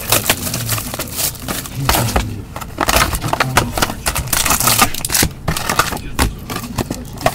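Plastic trading-card pack wrapper crinkling and crackling in gloved hands, with cards rustling and clicking against each other as they are pulled out and handled; irregular, close crackles and snaps throughout.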